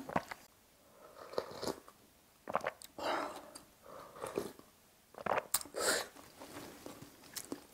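Close-up mouth sounds of eating a spicy sausage stew with ramen noodles: chewing, with a few hissy slurps of broth from a ladle and light clicks of the utensils.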